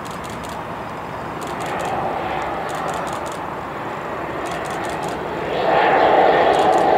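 Aircraft engines running, a steady noisy drone that grows louder about five and a half seconds in, with a few short runs of faint rapid clicks.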